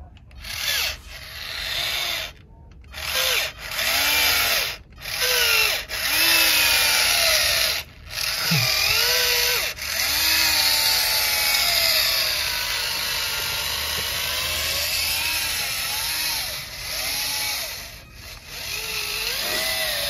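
Small electric motor and gearbox of a homemade remote-control model tractor whining as it drags a cultivator through sand. The whine rises and falls in pitch as the throttle and load change, and it stops briefly several times. The owner says the battery has died just here.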